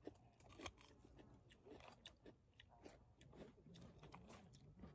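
Faint, close chewing of crisp raw cucumber: a run of small crunching clicks.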